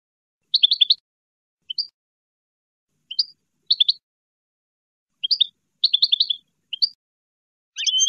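European goldfinch twittering: about eight short bursts of quick, high chirping notes with clean pauses between them, the longest runs about half a second in and around six seconds in.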